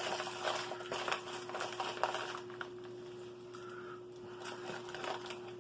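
MRE plastic wrappers and food pouches crinkling and rustling as they are gathered up and consolidated, busiest in the first couple of seconds and sparser after. A faint steady hum runs underneath.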